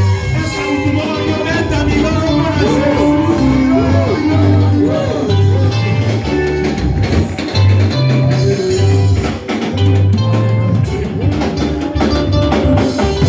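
Church worship band music: guitar melody over a bass line and drum kit beat.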